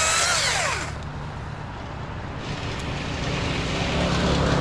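A small engine revs high and winds down in the first second, then it goes quieter. A lower, steady engine rumble builds up toward the end.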